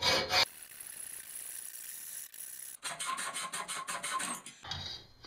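Hacksaw cutting through the generator frame's metal support bar: rasping strokes of the blade on metal, quick and evenly spaced from about three to four and a half seconds in, with a stretch of steady hiss before them.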